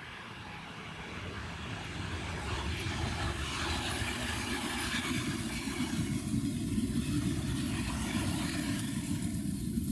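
Diesel-hauled passenger train passing close by: wheels running on the rails, growing louder as the train comes in, with the low drone of a Czech 'Brejlovec' diesel locomotive's engine strongest in the last few seconds as the locomotive at the rear draws level.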